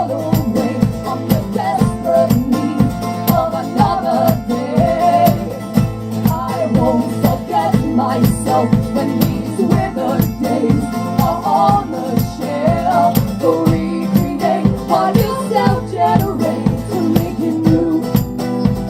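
A live band playing a song with a steady driving beat, and a wavering sung melody over it in which no words are picked out.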